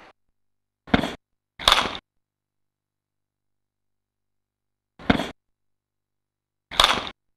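Four sharp whacks of a back whip kick and a sweeping staff landing on a large striking target, in two groups: two hits close together about a second in, then two more spaced about two seconds apart near the end.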